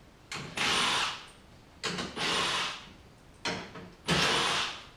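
Cordless drill running in three short bursts, backing out the 10 mm bolts that hold the grille.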